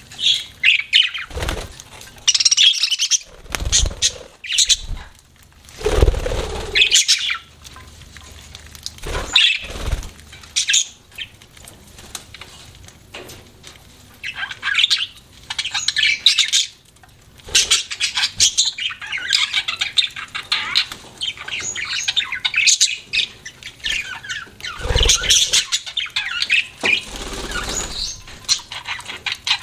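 Pet budgerigars chirping and chattering in quick, irregular bursts, with scattered low thumps between the calls.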